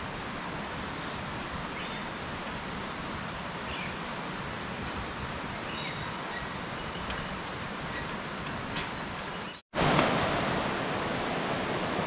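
Tropical rainforest ambience: a steady rushing hiss with a few faint high chirps. A little before ten seconds in it cuts out suddenly, and a louder rush follows.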